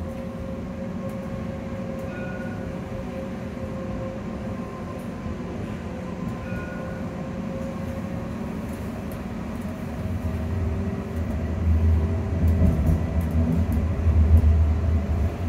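Edinburgh tram's electric traction equipment heard inside the passenger saloon: a steady hum with a held whine. A low rumble grows louder about ten seconds in.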